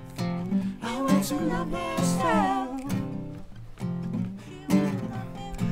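Acoustic guitar strummed with a sung vocal line that slides down in pitch about two seconds in.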